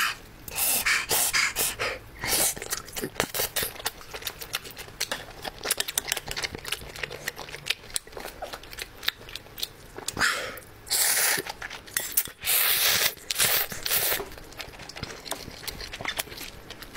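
Close-miked eating: a person chewing and slurping sauce-coated squid and enoki mushrooms, with many wet smacking clicks and a few longer hissing slurps in the second half.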